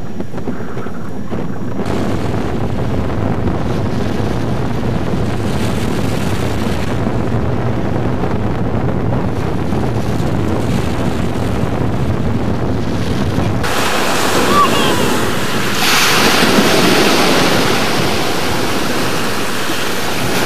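Waves breaking and washing up a sandy beach, with wind buffeting the microphone as a low rumble. About two-thirds of the way through the rumble drops away and the hiss of the surf comes through more clearly.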